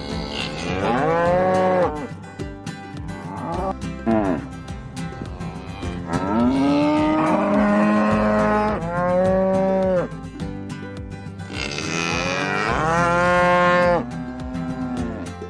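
Cattle mooing: about five long, drawn-out calls one after another, the pitch arching up and falling away in each.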